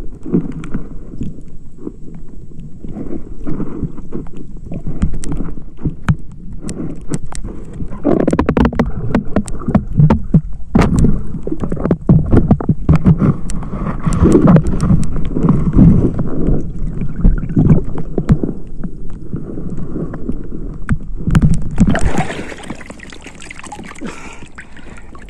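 Sea water splashing and sloshing, with gurgling and many irregular knocks, as a person moves through the water. About 22 seconds in it gives way to a quieter, steadier hiss.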